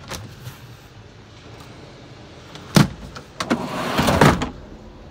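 Pull-out refrigerator drawer under the bunk of a truck cab being handled: a sharp knock nearly three seconds in, then about a second of sliding as the drawer runs on its rails.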